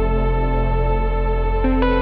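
Slow ambient music of sustained synthesizer pads and held notes, changing chord near the end.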